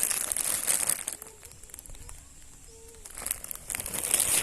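A bag crinkling as it is handled and its contents are gone through, in two bouts: the first second, and again from about three seconds in.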